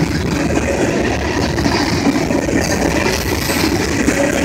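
Freight train's covered hopper cars rolling past at speed: a loud, steady rumble of steel wheels on the rails.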